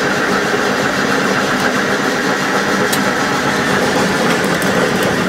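Dynamic crankshaft balancing machine spinning a crankshaft assembly at about 400 RPM, running steadily. The assembly is so far out of balance that the reading is off the scale and the shake can be felt.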